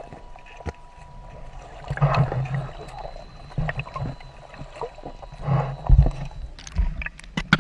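Water sloshing and splashing on a boat, with irregular low thumps and a cluster of sharp clicks and knocks near the end.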